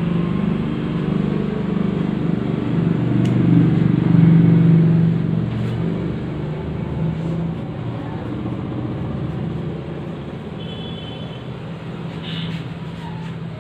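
Low rumble of a motor vehicle engine running nearby, loudest about four seconds in and then slowly fading.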